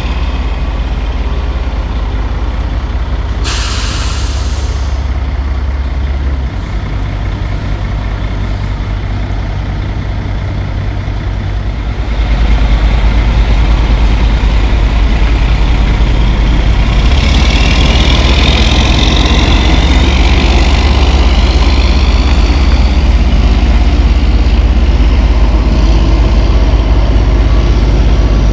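Western Star 4800 dump truck's diesel engine running low and steady, with a short burst of air-brake hiss about three and a half seconds in. About twelve seconds in the engine gets louder as the truck pulls away under load, and from about seventeen seconds a higher wavering whine rides over it.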